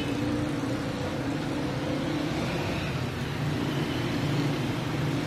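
Steady engine drone of motor traffic, with an auto-rickshaw and motorcycles driving past close by.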